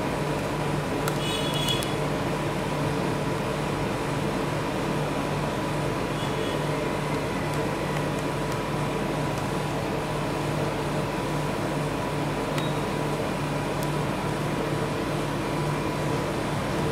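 Steady mechanical hum with a thin steady tone above it, like a running appliance motor or compressor.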